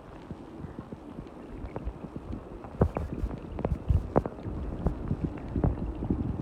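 Muffled low rumble of moving water recorded with the camera held underwater, broken from about three seconds in by a run of sharp knocks and clicks.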